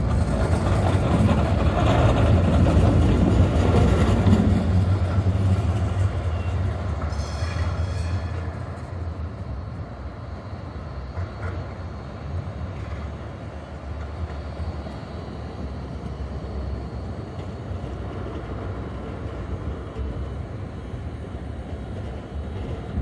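An articulated city tram passing close by on street track, its loud rumble over the first few seconds fading away, with a brief high squeal about seven seconds in. A quieter steady rumble of another tram and the street follows as a second tram draws near and passes.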